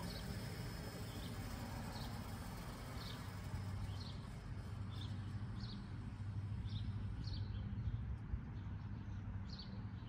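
A small bird chirping over and over, short high chirps roughly once a second, over a low steady hum.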